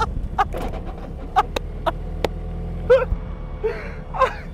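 A man laughing in short, separate bursts over the low, steady running of the BAC Mono's engine.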